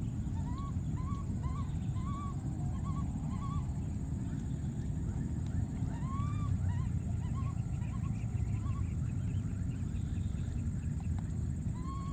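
Runs of short, rising-and-falling chirping calls from a small animal over a steady low rumble. The calls come in quick series in the first few seconds, again about six seconds in, where one is longer, and once more near the end.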